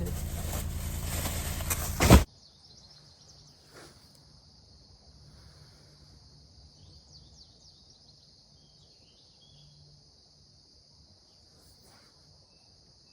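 A loud rushing noise that cuts off abruptly about two seconds in. Faint outdoor ambience follows: a steady high-pitched hiss and a few brief bird chirps.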